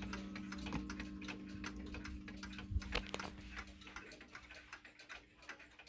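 Ingraham mechanical mantel clock ticking steadily, while a low ringing tone left from a strike just before slowly fades away.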